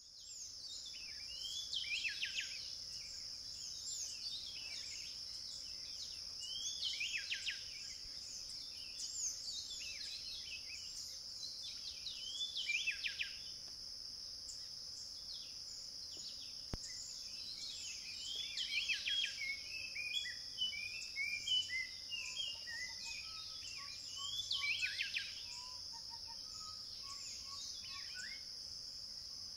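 Birds calling over a steady high-pitched insect drone. The bird calls come in groups every few seconds, each note sweeping steeply down in pitch. A cluster of short chirps and some lower notes join in about two-thirds of the way through.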